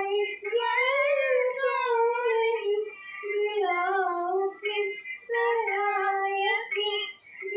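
A high-pitched voice singing an old song: long held notes that slide up and down, in phrases broken by short pauses for breath.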